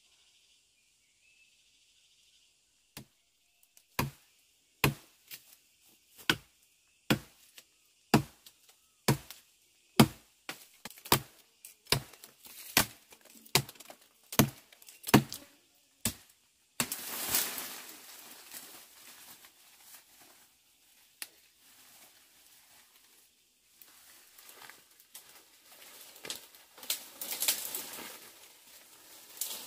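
A blade chopping into the trunk of a green sapling, about fifteen strokes at roughly one a second. Then the cut sapling comes down and is dragged through leafy branches, with a long stretch of leaves rustling and twigs crackling, loudest near the end.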